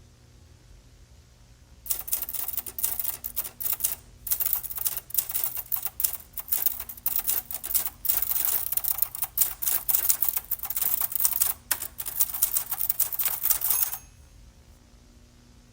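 Fast typing on a typewriter-style keyboard: a dense run of loud clacking keystrokes with a few short pauses. It starts about two seconds in and stops abruptly near the end.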